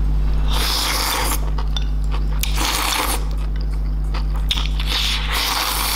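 A person slurping spicy instant noodles off chopsticks: three long, hissing slurps about two seconds apart.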